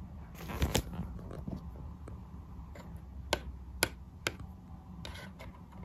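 Plastic LEGO minifigure tapped down on a hard surface as a hand moves it: a few sharp clicks, three of them about half a second apart in the middle, with a brief rustle of handling about half a second in and again near the end, over a low steady hum.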